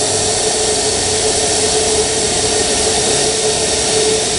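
MSR Reactor canister stove burning at full output, a steady roar with a low steady tone running through it. The water in its pot is close to boiling, and the bottom of the pot is starting to rattle.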